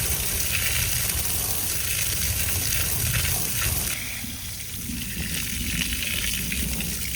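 Water spraying onto a freshly welded, still-hot steel mower wheel rim to cool the weld, a steady hissing splash that eases a little about four seconds in.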